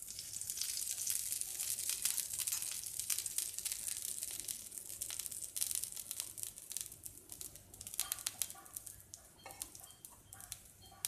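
Dosa batter sizzling on a hot dosa tawa with a little oil just added, a dense crackle that is strongest for the first several seconds and dies down toward the end.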